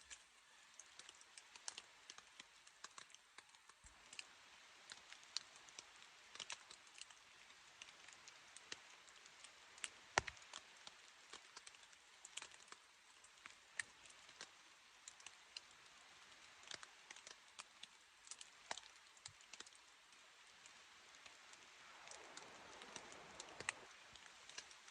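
Raindrops pattering on a tent's fabric: faint, irregular sharp ticks over a soft hiss, with a louder knock about ten seconds in and a swell of rustling near the end.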